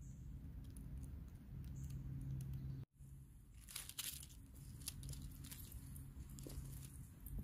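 Faint crinkling and rustling over a low steady hum, broken by a sudden cut to silence just under three seconds in, with one louder crinkle about a second after the cut.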